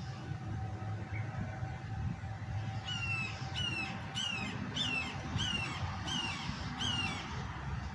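A bird giving a series of seven harsh squawking calls, about one and a half a second, starting about three seconds in, over a steady low rumble.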